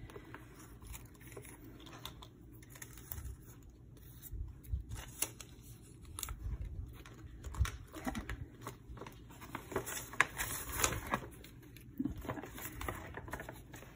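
Paper scraps and a clear plastic pouch rustling and crinkling as hands rummage through them, with small knocks and rustles coming on and off irregularly, busiest around the middle and about ten seconds in.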